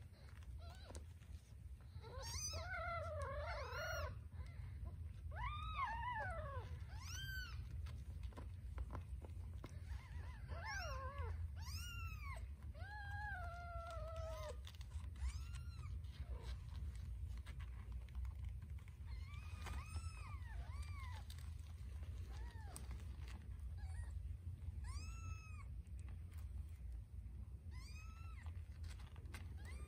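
Newborn kittens mewing while nursing: short, high-pitched, arched squeaks in little clusters every few seconds as they jostle for nipples. A steady low rumble runs underneath.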